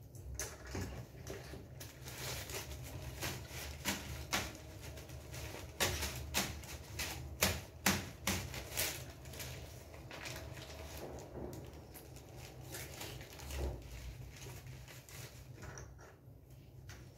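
A stack of paper slips being handled and sorted by hand: rustling and crinkling with sharp crackles and flicks, busiest and loudest in the middle, easing off toward the end.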